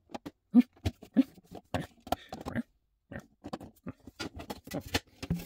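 Hard plastic panels of a container-shaped display case clicking and knocking as a side wall is fitted into the base, a run of sharp taps with a short pause midway.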